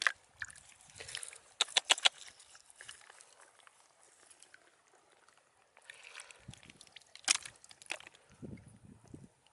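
Shallow water sloshing and splashing in short, separate bursts, with a cluster of sharp clicks about two seconds in and another near seven seconds.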